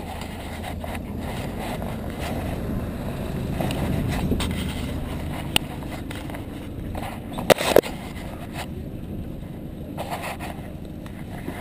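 A minibus's engine rumbling low as it drives close past, loudest a few seconds in and fading after. A few sharp knocks from the camera being handled, one at about five and a half seconds and a double knock near eight seconds.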